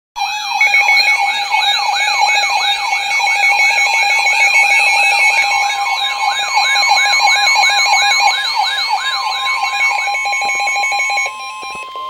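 NOAA weather radios sounding their alert alarms for a severe thunderstorm warning: a loud siren-like sweep repeating about two and a half times a second over steady and pulsing beeps. About a second before the end the alarms cut off, leaving one steady tone, the weather-radio warning alarm tone that comes before the spoken message.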